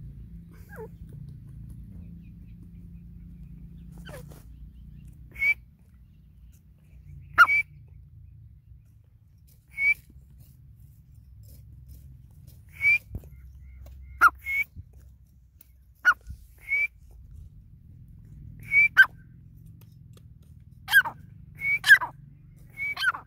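Grey francolin calling: short, sharp whistled notes, some dropping steeply in pitch, given one at a time every one to three seconds and coming faster and in pairs in the second half.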